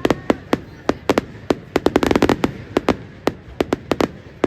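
Fireworks going off in an irregular rapid string of sharp cracks and bangs, several a second, thickest in a dense crackling cluster about two seconds in.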